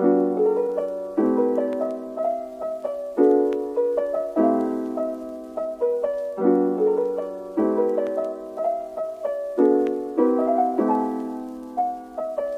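Background piano music: soft chords struck every second or two and left to ring and fade, with a simple melody above them.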